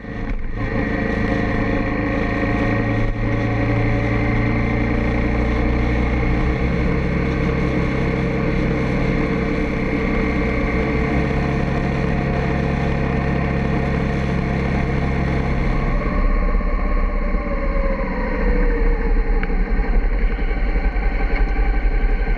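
Motorcycle engine running at a steady cruising speed, heard from the bike itself. About 16 seconds in the engine note changes and falls as the bike slows down.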